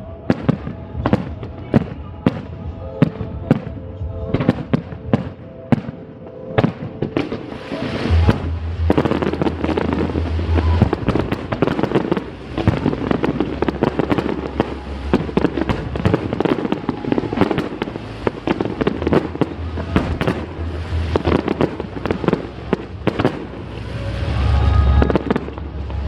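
Fireworks display: a quick series of sharp bangs that builds, about eight seconds in, into a dense barrage of bursts with deep booms, over music.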